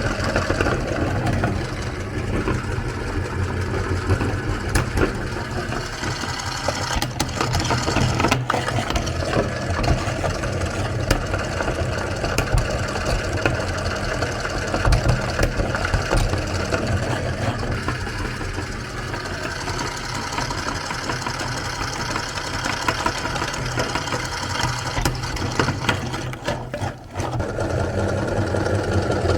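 Electric meat grinder motor running steadily while grinding soap, a low hum with scattered small clicks and crackles; the sound dips briefly near the end.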